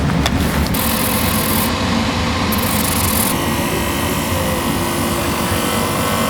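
Abrasive rubbing and grinding on a shoe's sole during a repair. The sound is cut into short clips that change abruptly about every second, and a faint steady motor tone joins about three seconds in.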